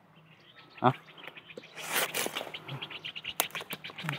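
Dry bamboo shoots and litter crackling and snapping as a shoot is pulled from a burnt bamboo clump: a run of quick, irregular cracks and rustles from about a second in. A brief voice sound comes just before it.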